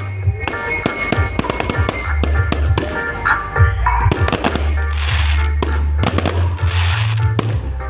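Fireworks popping and crackling in rapid, irregular cracks, with a couple of hissing bursts, over background music.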